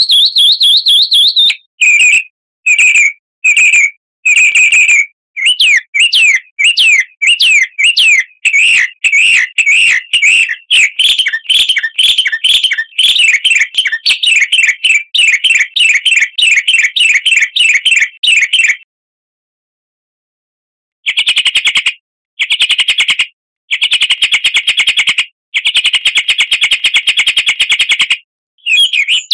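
Recorded songbird song: loud, rapid strings of high chirps repeated in bursts, with a pause of about two seconds about two-thirds of the way through. It is a bird-lure recording played to caged songbirds to set them singing.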